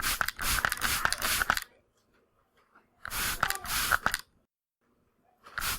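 Atomizer spray bottle spraying in quick strings of squirts, each squirt a short hiss with a click of the nozzle. There are two strings about a second and a half long, with a third starting near the end.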